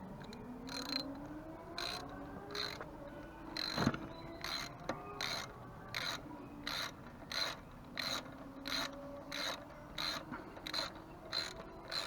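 3/8-inch-drive Draper ratchet with an extension and a half-inch socket on a step-up adapter, swung back and forth to run in a bolt, its pawl clicking in short bursts about one and a half times a second. A louder knock comes about four seconds in.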